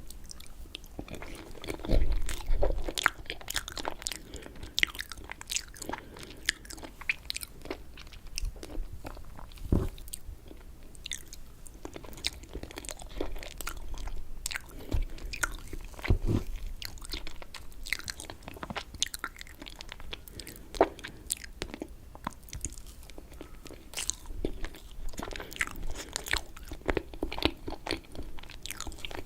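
Close-miked chewing and eating of raspberry cheesecake: a steady run of small wet mouth clicks and smacks, with a few louder low thumps scattered through.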